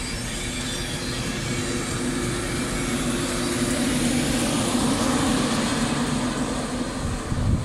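LNER InterCity 225 passing: Mark 4 coaches rolling by, then the Class 91 electric locomotive at the rear. A rushing rail noise carries a steady hum that grows louder as the locomotive goes by near the end.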